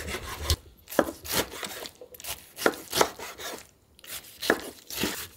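Chef's knife slicing through napa cabbage kimchi onto a wooden cutting board: a run of short, sharp cuts, about two a second at an uneven pace.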